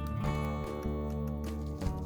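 Background music with sustained notes that change every half second or so.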